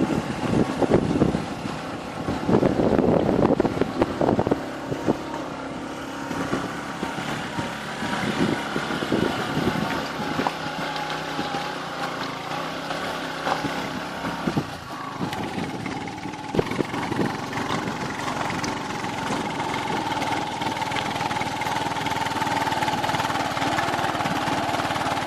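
Engine of an off-road vehicle running steadily as it drives up a rough track, with irregular thumps in the first few seconds and the engine drone growing a little louder near the end.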